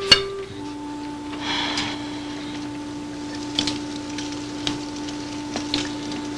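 Soft background music holding one sustained low note, with a sharp click just after the start and a few light clicks and clinks scattered through.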